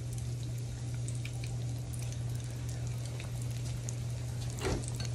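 Hot oil sizzling and crackling steadily as battered onion rings deep-fry, over a steady low hum.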